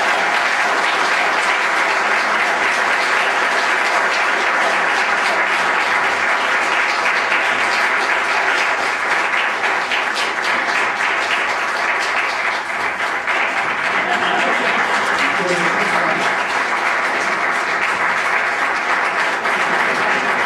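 Church congregation applauding steadily, with a few voices calling out.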